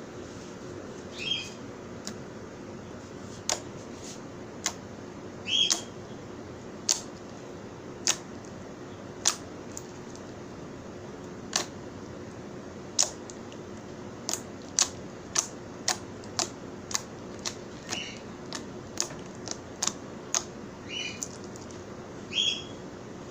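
Slime being squeezed and poked by hand, giving about two dozen sharp clicking pops at irregular intervals over a faint steady hum.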